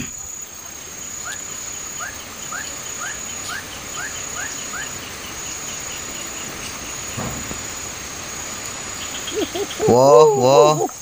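Insects trilling steadily by a stream, with a series of short rising chirps about twice a second in the first few seconds. Near the end a man's voice breaks in loudly.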